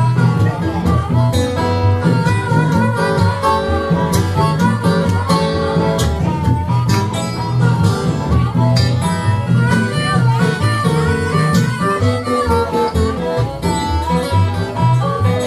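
Acoustic guitar playing an instrumental break in a Delta blues song, with sliding notes over a steady bass line and no singing.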